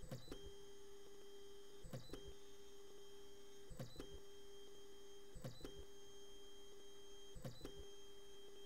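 3D printer stepper motors whining steadily as the print head moves, the whine breaking off with a short click about every two seconds as the motion stops and changes, then starting again.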